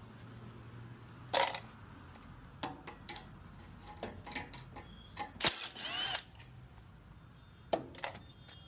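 Scattered clicks and clinks of small metal engine parts and hand tools being handled, about half a dozen in all. The loudest comes about five and a half seconds in, with a brief ringing scrape just after it.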